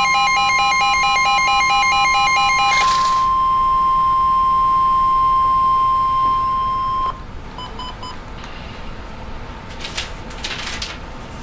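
Loud electronic alarm tones: a rapidly pulsing, buzzing tone cuts off in a burst of noise about three seconds in, while a steady high beep holds until about seven seconds in. Then it is quieter, with a few short beeps and some clicks near the end.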